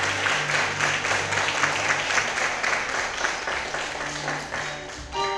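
Audience clapping along in a steady beat over low, held notes from the band's keyboard. About five seconds in, a louder ringing chord comes in.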